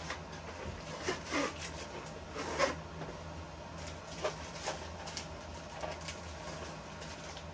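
A cardboard model-train box and the plastic bag around the boxcar being handled: short, irregular rustles and crinkles, a few close together about a second and a half in and again around four to five seconds, over a faint steady low hum.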